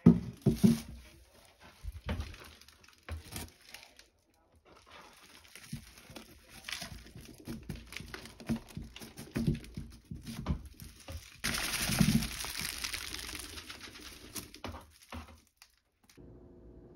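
Flexible aluminium-foil dryer vent duct crinkling and knocking against a plastic trash-can liner as dust is shaken out of it, with a burst of rustling about two-thirds of the way through.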